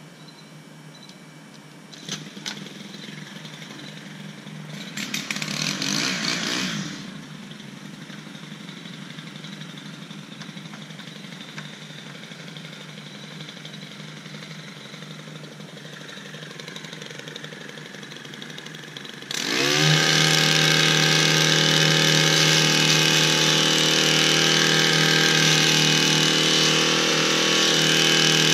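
Stihl gas hedge trimmer engine idling, revved briefly about five seconds in, then opened up to full throttle a little before the last third and held running at high speed.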